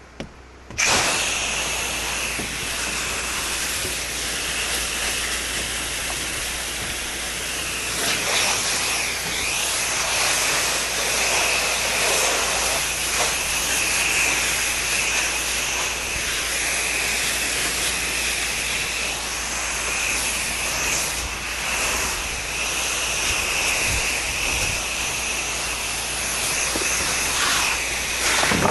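Pressure washer spray hissing steadily from the wand, switching on suddenly about a second in, with a low engine hum underneath.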